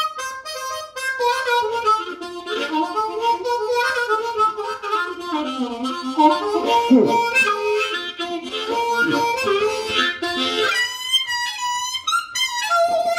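Solo Seydel 1847 Classic harmonica in B-flat, in Wilde rock tuning, played blues-style without accompaniment. Around the middle, low notes are bent down and back up, and near the end it moves to higher notes.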